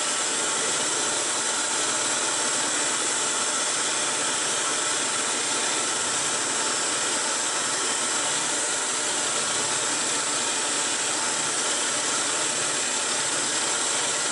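Hegner scroll saw running and cutting through stacked 6 mm birch plywood: a steady hiss over a faint low hum, unchanging throughout.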